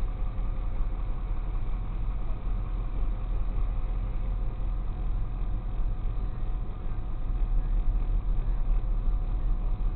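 Tow truck's engine idling steadily, heard from inside the cab.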